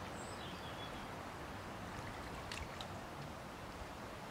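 Steady hiss of wind and gently lapping water around the legs and hands of a man wading while he holds a pike upright in the shallows. Faint high chirps sound in the first second.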